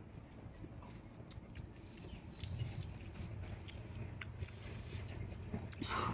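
A person chewing and eating food close to the microphone: scattered small clicks and mouth sounds, over a low steady hum.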